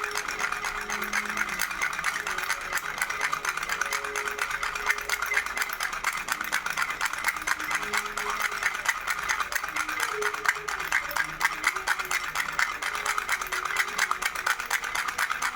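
Baby rattle shaken quickly and continuously, a dense stream of fast clicks with no pauses.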